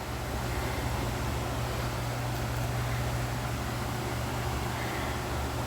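A steady low hum under an even hiss, unchanging throughout: a machine running continuously.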